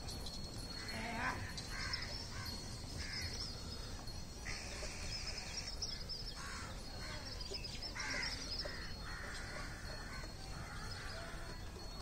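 Crows cawing repeatedly, a string of harsh calls through the whole stretch, with faint high chirping of small birds behind.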